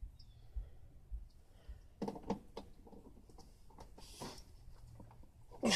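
Faint handling noises of hands working at stuck plastic on an air conditioner's casing: scattered clicks, scrapes and knocks, with a louder short rasp near the end.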